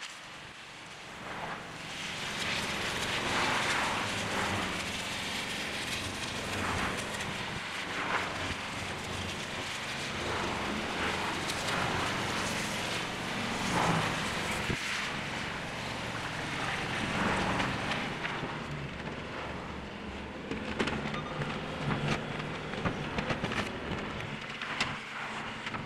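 Oxy-acetylene cutting torch hissing as it cuts through a steel water-tower column: a rushing noise that swells and fades every second or two over a steady low rumble, with a run of sharp clicks near the end.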